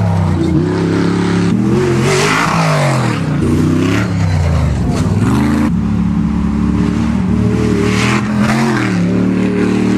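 Off-road race buggy engines revving hard. The pitch climbs and drops repeatedly as the throttle is worked, with a deep fall about halfway through.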